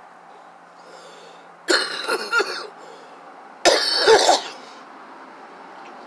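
A woman coughing in two short bouts, each a quick run of several coughs. The first comes about a second and a half in and the second about two seconds later.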